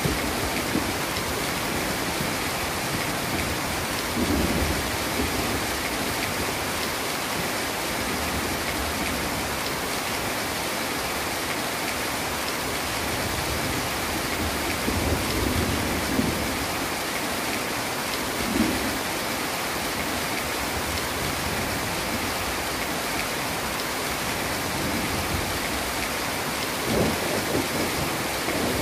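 Heavy rain pouring steadily, with low rumbles of thunder rising briefly several times.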